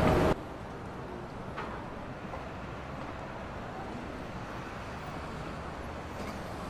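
A louder street-like sound cuts off abruptly just after the start. It leaves a steady, low, even ambient hum with one faint tick about a second and a half in.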